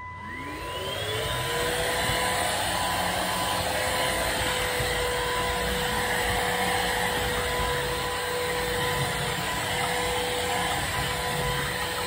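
Cordless wet-dry vacuum mop switching on, its motor whine rising over the first second or so, then running steadily with a rush of air on the suction-only setting, mop off, as it is pushed over the floor.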